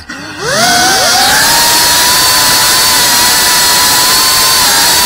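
FPV quadcopter's brushless motors and propellers whining. The whine drops away as the throttle is cut at the start, climbs back in pitch within about a second as the throttle comes up, then holds a steady high pitch.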